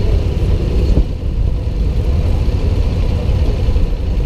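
Motorcycle and scooter engines running at low speed in a slow-moving column, heard from a helmet-mounted camera as a steady low rumble.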